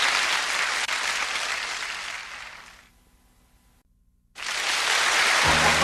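Studio audience applauding, fading away over a couple of seconds into a short silence. Applause starts again abruptly, and music comes in over it near the end.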